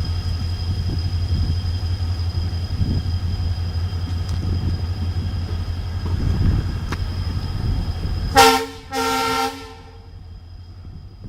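Private bus engine running under load with a steady low drone, then two blasts of the bus's horn about eight and a half seconds in: a short one, then a longer one of well under a second. After that the engine note falls away, quieter.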